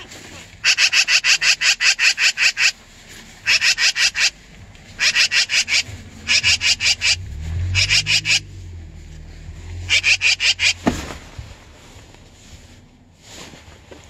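Magpie chattering: six bursts of rapid rattling notes, about nine a second. The first burst lasts about two seconds and the rest under a second each.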